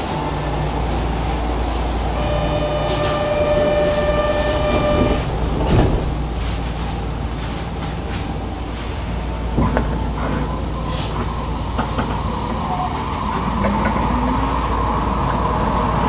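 Kyoto Municipal Subway Tozai Line train heard from inside the car: a steady low rumble with a few short clacks, and a pitched tone held for a couple of seconds early on.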